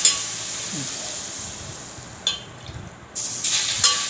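Warm oil spooned onto ground garlic, sizzling as the garlic fries. The hiss starts afresh a little after two seconds and again near the end, as more spoonfuls land. A steel spoon clinks against the steel pot and plate.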